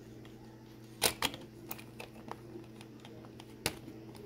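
Sharp plastic clicks and taps, about six spread unevenly, from handling a hobby-grade RC transmitter as its battery cover is slid back into place.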